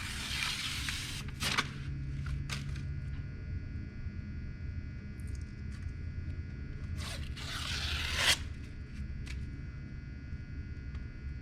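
Sanding-disc paper being peeled and torn away in a few short rasping bursts, the longest about a second and a half near the end.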